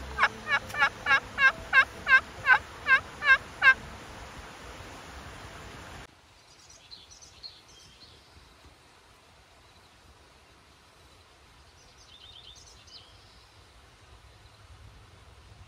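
A rapid run of about a dozen loud, evenly spaced turkey yelps over the first four seconds, each note dipping and rising in pitch. It is followed by a faint outdoor background with a few small bird chirps.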